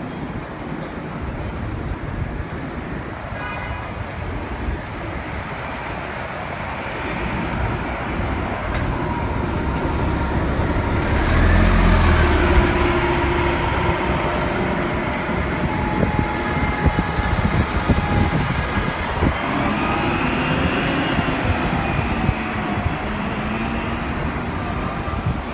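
City street traffic, with an articulated New Flyer D60 diesel bus pulling past close by. It is loudest about halfway through, where deep engine rumble and a whining drivetrain tone peak, before the traffic noise settles back.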